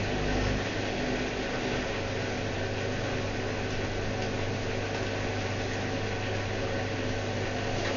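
Whirlpool washing machine running, a steady motor hum with noise from the turning drum.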